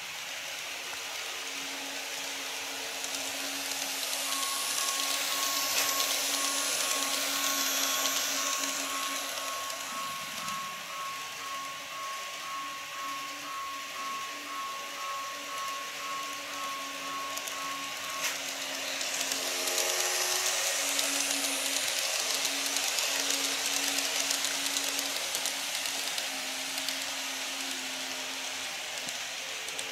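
Model electric trains running on a model railway track: a steady motor hum with the hiss of wheels rolling on the rails, swelling louder twice as trains pass close by.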